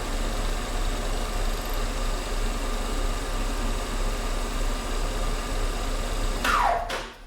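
Schaublin 102 lathe running steadily with a motor hum, then switched off near the end, its pitch falling quickly as it spins down and stops.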